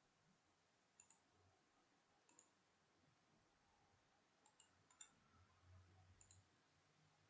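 Near silence broken by a few faint computer mouse clicks, several coming in quick pairs.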